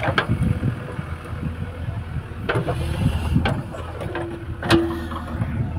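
JCB 3DX backhoe loader's diesel engine running steadily, with a few short sharp knocks over it.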